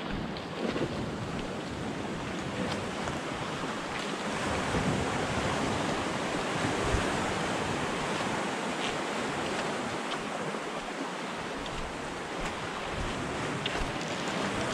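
Small sea waves washing steadily over a rocky shoreline, with wind buffeting the microphone and a few faint clicks.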